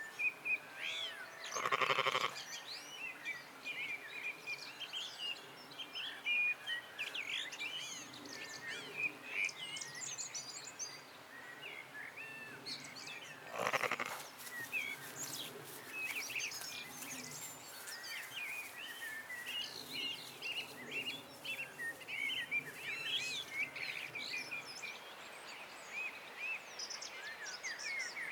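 Birdsong chorus of many small birds chirping and trilling throughout, with two loud bleats, one about two seconds in and one about halfway through, over a faint low hum.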